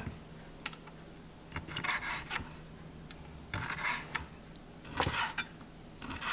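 Kitchen knife slicing cooked octopus tentacles on a cutting board, in several short runs of quick strokes about a second apart.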